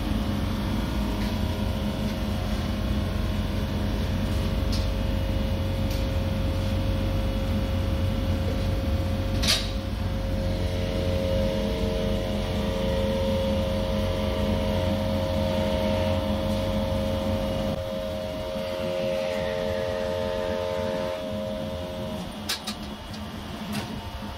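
Sheet-steel bending machine running with a steady motor hum; a higher steady tone joins from about ten seconds in until near the end, with a sharp click about halfway through and a few more near the end.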